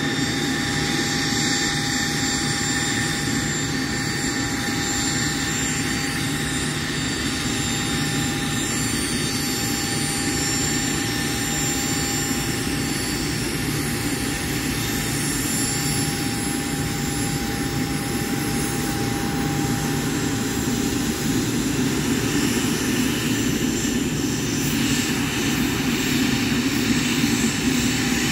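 Boeing 777-9's GE9X jet engines running at idle while the aircraft stands on the runway: a steady whine with thin held tones over a low rumble. It grows a little louder in the last few seconds.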